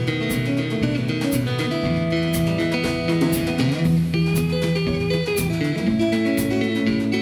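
Fingerpicked steel-string acoustic guitar, a Martin 00-28, playing an instrumental tune, accompanied by a drum kit with a sharp hit about once a second.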